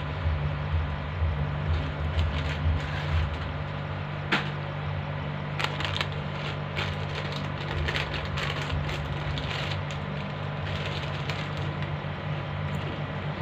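Crunchy packaged snack chips being bitten and chewed, heard as scattered crackly crunches, with a plastic chip packet crinkling as it is handled about six seconds in. A steady low hum runs underneath.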